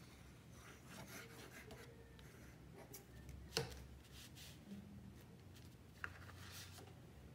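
Faint rustling of paper and cardstock being handled and positioned by hand, with a sharp tap about halfway through and a smaller tap near the end.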